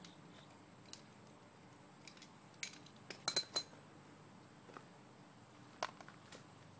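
A few scattered light metallic clinks of tools or small hardware being handled: one about a second in, a quick cluster of three a little past the middle, and one more near the end.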